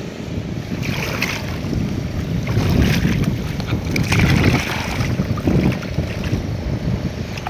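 Shallow muddy water splashing and sloshing as hands dig and grope through the lake bottom, in several bursts, over a steady rumble of wind on the microphone.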